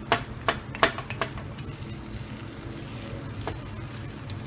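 Wooden spoon stirring rice in a metal pot, knocking sharply against the pot four times in the first second and a half and once more later, over a low steady sizzle of the rice as its cooking water dries out.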